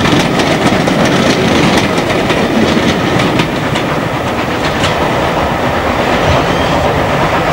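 Steam-hauled train passing close, its wheels clattering over the rail joints in quick repeated clicks. In the second half the GWR locomotive City of Truro runs by.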